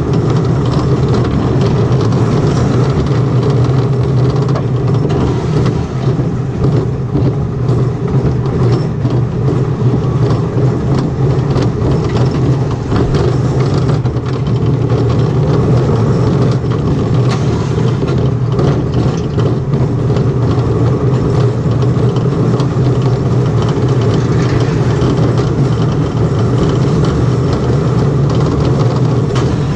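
Super Railway travelling steel coaster train running along its track: a steady, loud rumble of the wheels on the steel rails, with light clattering of the cars throughout.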